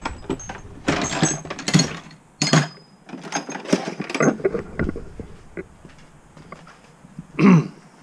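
Handling noise from a small action camera held against a fleece jacket: irregular rubbing, rustling and clicks as it is moved and repositioned. A short vocal sound comes near the end.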